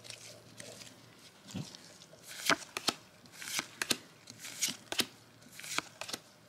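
Pokémon trading cards being flipped through one at a time in gloved hands: irregular sharp snaps and slides of card on card, coming more often from about two and a half seconds in.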